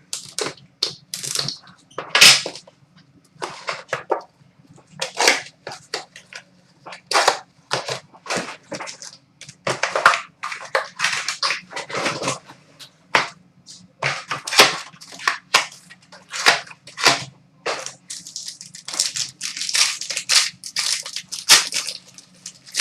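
Sealed trading card box and its plastic wrapping being torn open and the cards handled: irregular crinkling and crackling of wrap and packaging with sharp snaps, over a faint low hum.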